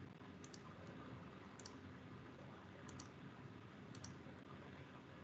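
Faint computer mouse clicks, each a quick press-and-release pair, about one a second, over near-silent room hiss.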